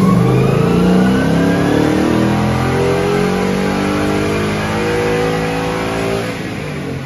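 2021 Mustang GT's 5.0-litre Coyote V8, with a stock engine, at full throttle on a chassis dyno. Engine speed climbs steadily for about six seconds, then the throttle closes and it falls away near the end.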